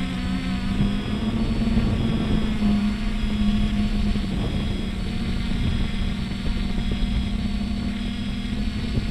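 Traxxas Aton quadcopter's motors and propellers running in flight: a steady hum with a low rumble of wind on the microphone, as heard from the GoPro carried on the drone.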